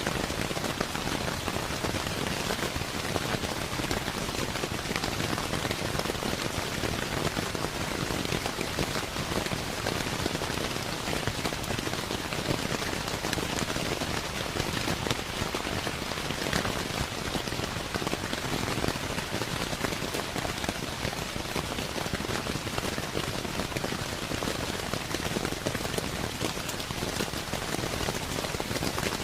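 Steady rain pattering on a roof, dense drops ticking evenly throughout.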